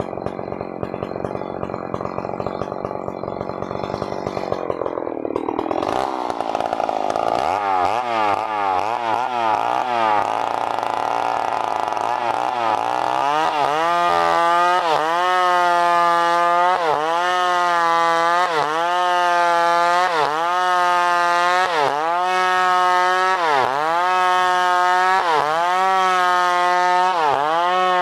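Two-stroke New West PRO 888 chainsaw running at high revs, revving up about a third of the way in, then holding a steady high pitch. From about halfway in, the pitch dips briefly in an even rhythm, a little less than once a second, as the saw loads while sawing wood.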